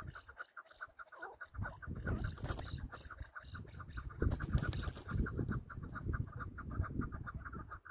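Chukar partridge calling in a rapid, even series of clucks, roughly nine or ten a second, over a low, uneven rumble.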